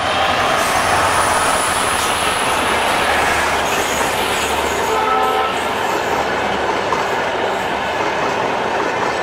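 Passenger train running past at speed: the diesel locomotive's engine hum fades as it goes by, leaving the loud, steady rush and rumble of the coaches' wheels on the rails. A few brief high notes sound about five seconds in.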